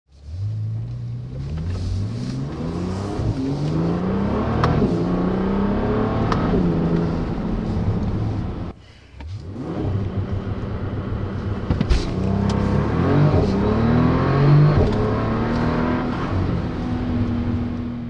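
Bentley Continental GT engine and exhaust accelerating hard, its pitch climbing again and again and dropping back at each gear change, with a few sharp cracks along the way. The sound dips briefly about halfway through, then pulls through the gears again.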